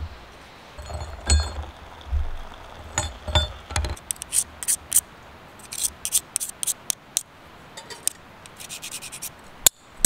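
Orange plastic tent stakes handled and rubbed clean of dirt: a few dull knocks at first, then quick runs of sharp clicks and scrapes as the stakes tap and rub together.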